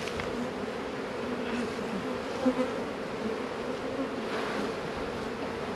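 Honeybees buzzing around an opened hive, a steady hum that swells briefly about two and a half seconds in.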